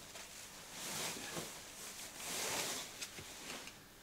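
Rustling of jackets being handled, a navy puffer and nylon shell coats: soft swells of rustle, the loudest about two to three seconds in.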